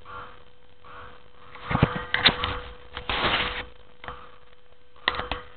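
Camcorder handling noise as the camera is moved: several sharp knocks and a short burst of rubbing around two to three and a half seconds in, then a couple of clicks near the end, over a faint steady electronic hum.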